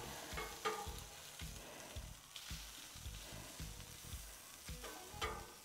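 Asparagus and potatoes sizzling on a hot steel flat-top griddle. A metal spatula gives a few scrapes and taps on the griddle surface near the start and again near the end.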